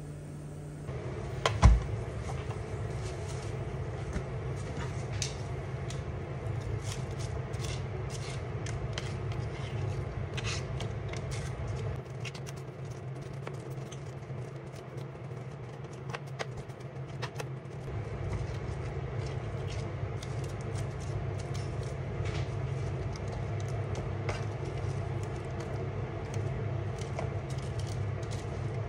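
Metal kitchen tongs clicking and scraping against a metal roasting pan while baked chicken thighs and vegetables are moved about, many light clicks over a steady low hum. A single loud knock comes about two seconds in.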